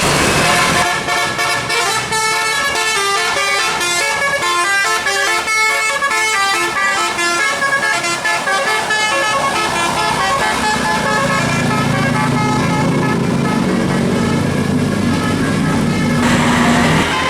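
Tour bus's multi-note musical 'telolet' air horn playing a quick melody, its notes changing every fraction of a second for the first ten seconds or so. After that a lower, steadier drone takes over.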